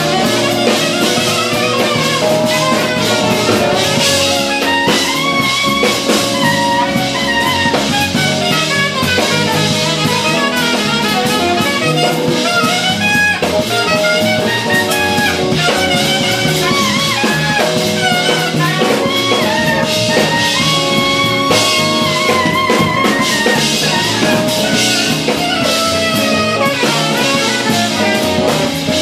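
Live jazz fusion band playing: a saxophone plays melodic lead lines over electric bass, electric guitar, keys and a drum kit.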